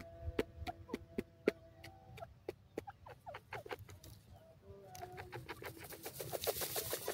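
Grey francolin giving soft calls: a run of short clucking clicks, with drawn-out notes in the first two seconds and quick falling chirps in the middle and near the end.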